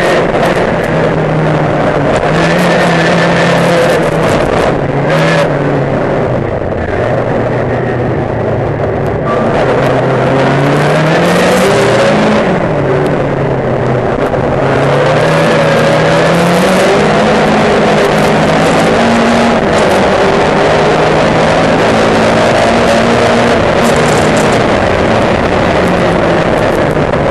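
Saloon racing car's engine heard from inside the car under race load, its pitch climbing repeatedly as it accelerates and dropping back at each lift or gear change. Steady wind and road noise runs underneath.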